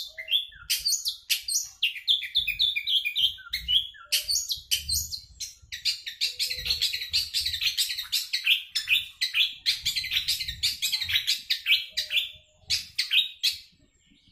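Long-tailed shrike (cendet) singing a fast, continuous rolling song of rapid chattering notes. The song is densest in the middle and breaks off near the end. Faint low thumps sit underneath.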